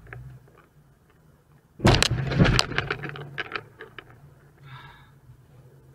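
Low-speed car collision: about two seconds in, a sudden crunch as an Infiniti sedan hits the dashcam car, followed by about a second and a half of cracking and clattering that dies away.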